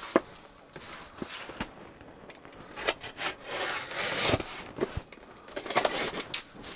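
A utility knife cutting open the wrapping on a cardboard box: a series of short scraping, rasping strokes with a few sharp clicks.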